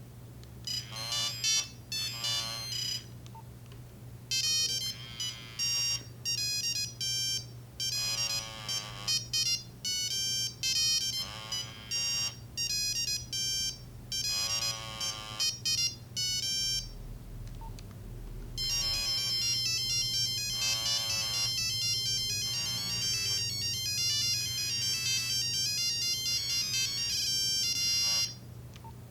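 Nokia 3395 mobile phone playing ringtone melodies from its small speaker: electronic beeping notes start about a second in, with short pauses between phrases. A little past halfway they change to a faster, denser run of notes, which stops shortly before the end.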